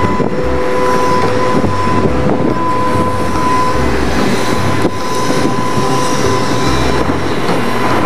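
Large material handler working a grab at a dockside: a loud, steady mechanical din with low rumble and a steady high tone running through it.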